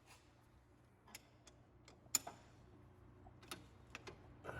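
A few scattered light clicks and taps of hand tools on metal at irregular intervals, the sharpest a little after two seconds in.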